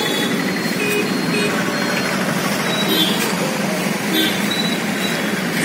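Steady hum of road traffic from a busy junction, with a few brief high tones scattered through it.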